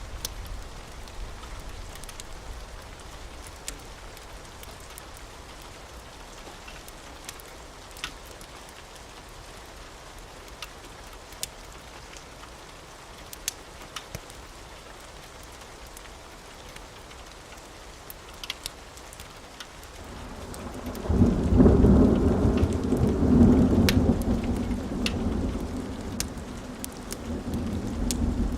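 Steady rain falling, with scattered sharp ticks, and about two-thirds of the way through a low roll of thunder that swells up, rumbles for several seconds and slowly fades.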